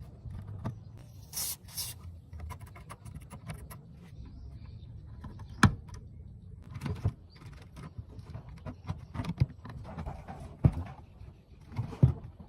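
Scattered clicks and knocks of small objects being handled, with a brief hiss about one and a half seconds in and a few sharper knocks later on.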